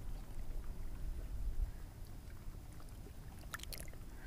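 Gentle water sloshing as a small perch is released by hand into shallow lake water, over a low rumble; a few small splashes or drips about three and a half seconds in.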